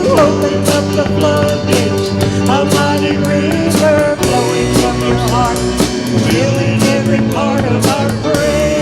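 Worship band playing an instrumental passage with drum kit and a steady beat.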